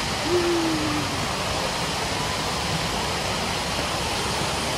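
Steady rushing wash of water and many swimmers in an indoor water park pool hall. A short, slightly falling tone sounds less than a second in.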